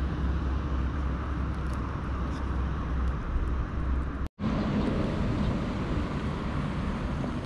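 Steady outdoor background rumble and hiss, cut off for an instant about four seconds in.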